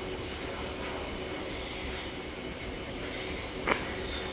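Metro train rolling slowly into a station, heard from inside the passenger car: a steady rumble with a faint high squeal from the wheels in the second half, and one sharp clunk about three and a half seconds in.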